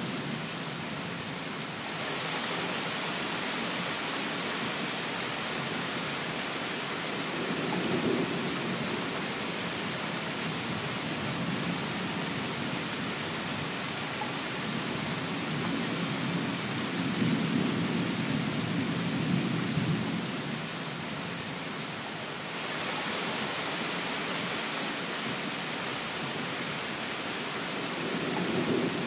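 Steady rain falling hard, with low rolling thunder swelling up and fading away about three times.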